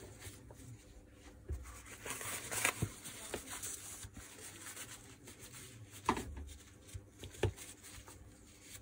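A rag rubbing and wiping grease off the gearbox housing of a Makita HR2450 rotary hammer, with two short knocks of the part being handled toward the end.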